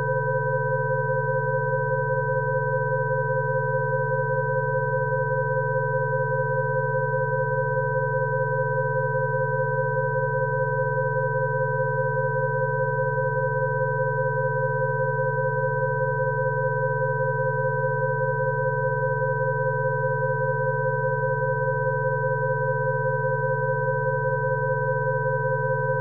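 Several pure electronic sine tones sounding together and held steady, a set of Rife frequencies: a low hum, two middle tones close in pitch that waver slightly against each other, and two higher tones.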